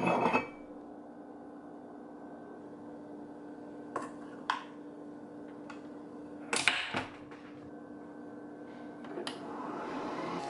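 Nespresso capsule coffee machine humming steadily, with a few sharp clicks and a short clatter. Near the end a louder, steady machine noise starts up as it begins brewing.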